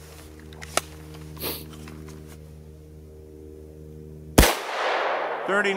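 A single shot from an 18-inch-barrel AR-15 firing a .223 Remington 60-grain V-Max handload about four seconds in: one sharp crack with an echo that fades over about a second. A steady low hum runs underneath before it.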